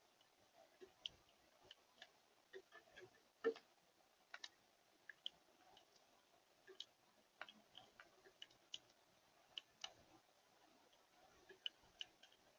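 Faint, irregular clicks and taps of birds pecking seed at a feeder, sometimes in quick pairs, with a louder tap about three and a half seconds in.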